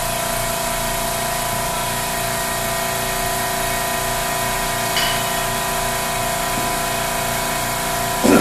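Air-over-hydraulic ram's air-driven pump running steadily, a constant hum with hiss as it extends the ram on the tubing bender, its air supply starved by a compressor that can't keep up. A short clank about five seconds in and a louder knock near the end.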